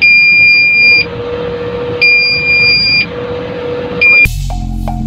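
Cab warning buzzer of a BharatBenz 3528C tipper truck, the alert that sounds when the driver's attention strays from the road. It gives a high electronic beep held about a second, a second's gap, another second-long beep, then a short one, over the truck's cab and road noise. Music cuts in near the end.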